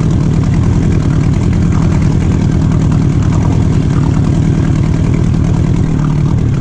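Outboard motor running steadily at slow trolling speed.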